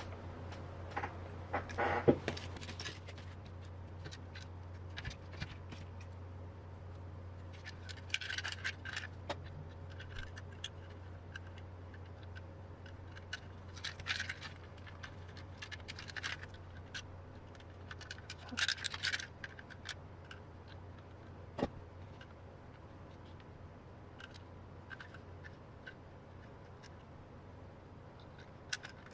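Small kit parts and metal hardware clicking, rattling and scraping as they are handled during assembly of an RC car kit, in short bursts every few seconds over a steady low hum.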